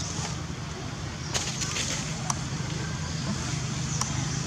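Outdoor ambience: a steady low hum under a background hiss, broken by a few short sharp clicks about one and a half, two and a half and four seconds in.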